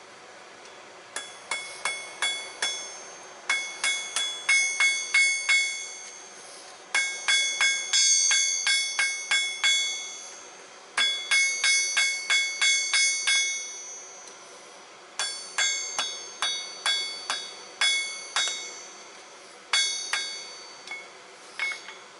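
Hand hammer striking a red-hot steel knife blade, forged from an old file, on an anvil. The blows come in six runs of about three a second, with a pause of a second or so between runs, and each blow rings with a bright metallic tone.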